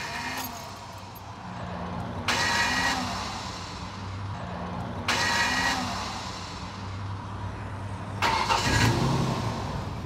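Starter motor of a 2004 Ford Ranger screeching and grinding in three short bursts about three seconds apart as the key is turned. The starter drive gear is only spinning out part way and grinding against the side of the flywheel (flexplate) teeth instead of engaging them: a failing starter.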